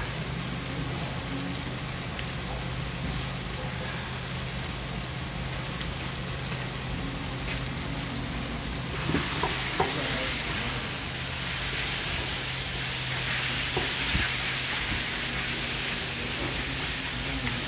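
Spicy chicken and chopped vegetables sizzling on a hot round iron griddle pan as they are stir-fried with wooden spatulas. The sizzle grows louder about halfway through.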